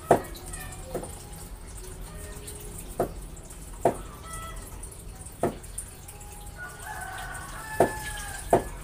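Knife chopping on a cutting board: sharp, irregular knocks every second or two. Near the end, a rooster crows in the background.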